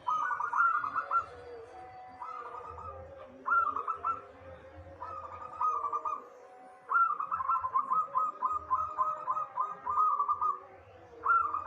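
Zebra dove (perkutut) cooing: short phrases of rapid, rolling coos repeated every second or two, with one longer run of coos about two-thirds of the way through.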